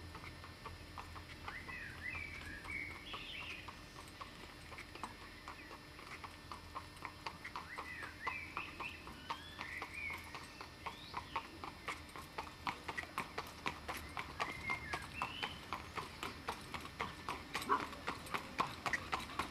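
Hooves of a horse pulling a four-wheeled carriage, clip-clopping at a walk on a gravelly road and growing louder as it approaches. Birds chirp now and then.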